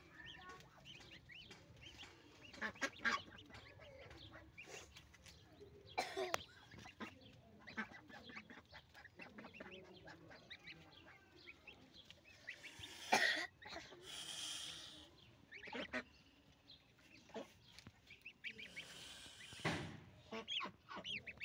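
Goslings peeping as they peck at fresh green leaves, with many small clicks and leaf rustling and a couple of louder rustling bursts, about 13 seconds in and again near the end.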